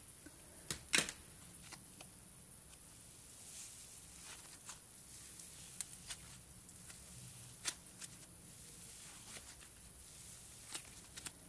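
Cloud butter slime (fluffy slime with clay mixed in) being stretched and squeezed in the hands, giving off faint, irregular crackles and small pops, about a dozen over the stretch.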